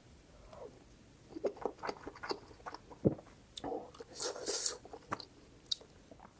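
Eating spicy instant ramen: irregular wet chewing and lip smacks, with a longer noisy slurp about two-thirds of the way in.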